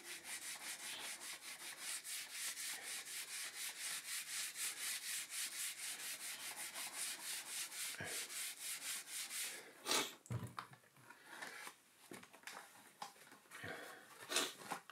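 Soapy Brillo steel-wool pad scrubbing black brake-pad marks off the brake track of a Skyway Tuff 2 plastic BMX mag wheel, in quick even strokes of about four a second. The scrubbing stops about ten seconds in with a single knock, followed by a few light handling sounds.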